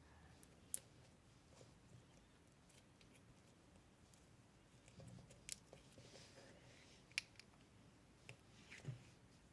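Slime being worked by hand, quiet apart from a few sharp clicks and pops from the slime, about four spread across the stretch, with some soft squishing in between.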